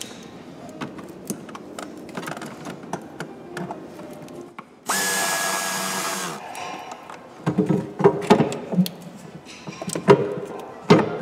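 Clicks, knocks and clatter of parts being handled and refitted in a car's engine bay during reassembly. Near the middle, a loud steady noise with a whine runs for about a second and a half and cuts off suddenly, then heavier knocks and clatter follow.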